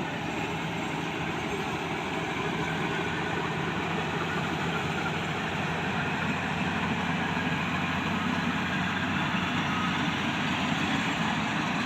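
Track-type combine harvester's diesel engine and machinery running steadily, growing slightly louder toward the end.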